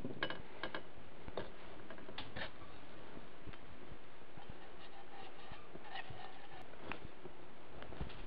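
Scattered light metallic clicks and taps from steel transmission gears and shaft being handled, over faint steady background noise; the sharpest click comes about seven seconds in.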